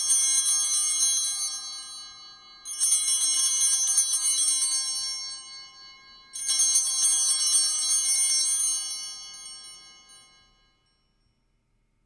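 Altar bells shaken three times, each jangling ring fading away before the next: the signal for the elevation of the consecrated host at Mass.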